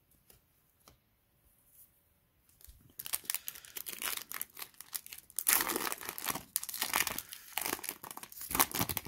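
Foil booster pack wrapper being torn open and crinkled, starting about three seconds in, with sharp crackles through to the end.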